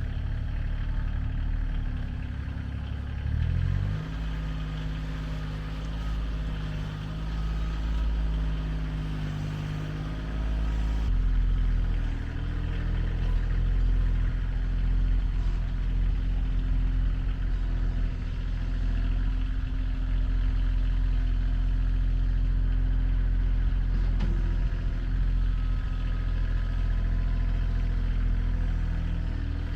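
Motor vehicle engine running steadily, its pitch shifting about four seconds in and again about eleven seconds in.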